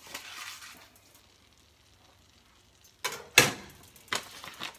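A few sharp clanks of a metal wire whisk against a nonstick frying pan of melted butter, the loudest about three and a half seconds in. A short soft rustle comes before them at the very start.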